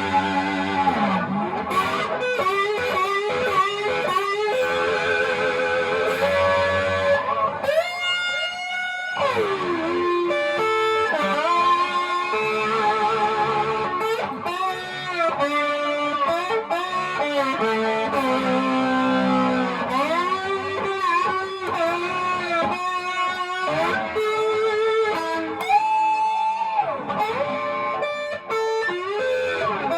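Slide guitar: an electric guitar played with a slide, single-note lines gliding up and down between pitches with held, sustaining notes.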